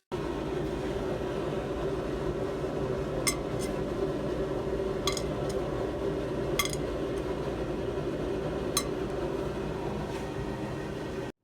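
A steady machine hum with a handful of sharp clinks scattered through it, starting and stopping abruptly.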